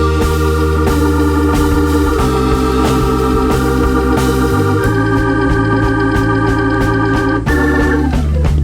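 Background music: sustained organ chords over a steady bass, changing every few seconds, with drums coming in near the end.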